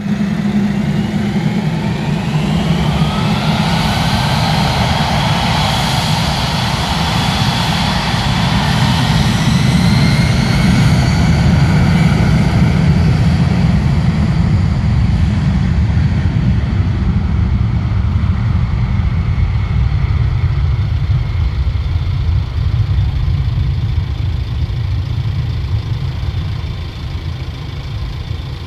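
Boeing 757 freighter's twin jet engines spooling up to takeoff thrust, a rising whine over the first few seconds, then a loud steady roar through the takeoff run that fades near the end.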